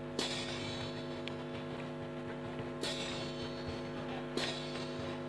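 Steady electrical mains hum, a stack of several low droning tones. Three short hissing swells cut across it: just after the start, about three seconds in, and again a second and a half later.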